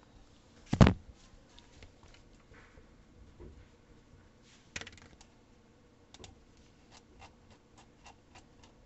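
Clicking at a computer: one loud thump about a second in, a sharp click near five seconds, then a run of light, uneven key clicks over the last few seconds.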